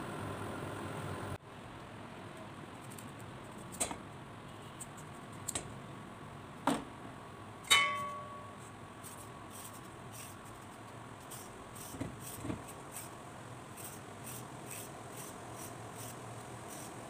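Vegetable peeler scraping ribbons off a raw carrot over a stainless steel bowl: short scraping strokes, coming about two a second in the second half, with a few louder knocks and one ringing metal clink against the bowl. A steady hum from the induction cooker is heard for the first second or so.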